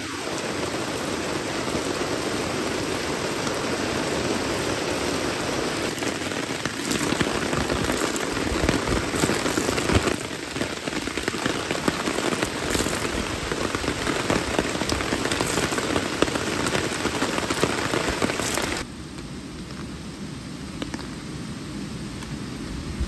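Heavy rain falling on a tarp and a wooden deck, with water streaming off the tarp's edge. The rain drops noticeably in level near the end.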